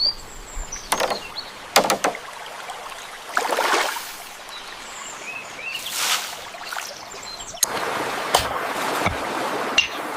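Water splashing in short bursts with faint high chirps over it. About three-quarters of the way through it gives way to a steady rush of running water, broken by a few sharp clicks.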